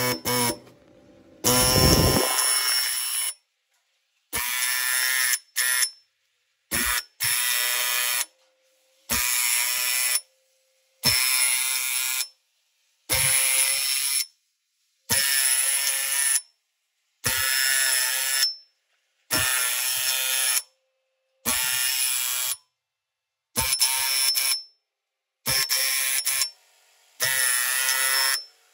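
Pneumatic dot peen marking machine stylus hammering into a metal tube: a harsh, rapid buzz in bursts of about a second, repeating roughly every two seconds as it stamps characters.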